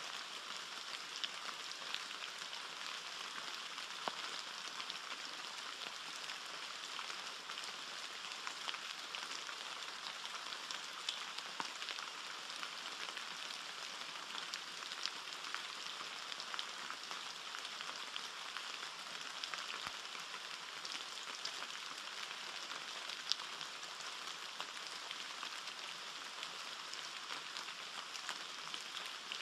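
Steady rain falling on forest leaves, many small drops heard as scattered ticks over an even hiss.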